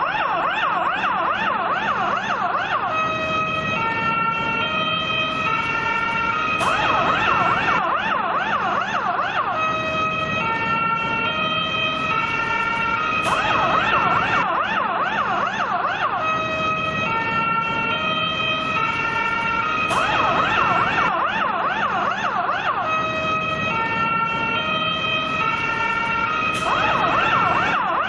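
Finnish fire engine siren cycling between a fast warbling yelp and a stepped hi-lo tone pattern, switching every three to four seconds. A short click marks each return to the fast warble.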